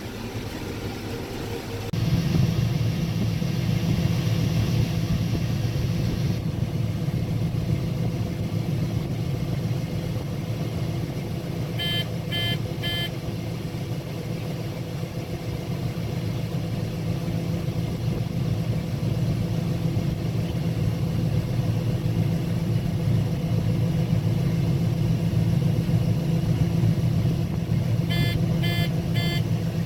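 Combine harvester running steadily while shelling corn: a loud, even machine drone that swells up about two seconds in. A quick run of short electronic beeps sounds twice, once partway through and once near the end.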